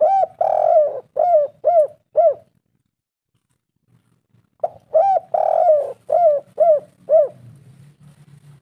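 Spotted dove cooing: two phrases about four and a half seconds apart. Each is a short coo, then a longer one, then three or four short arched coos about half a second apart.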